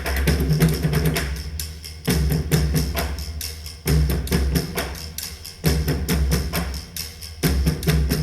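Music with drums and percussion played back through a Cayin Pearl 30i amplifier. A deep bass hit with a run of sharp percussive strokes repeats about every two seconds.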